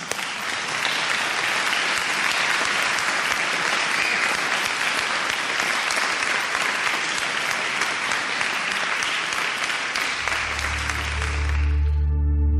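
Audience applauding steadily, then fading out near the end. About ten seconds in, a low sustained note of backing music begins underneath.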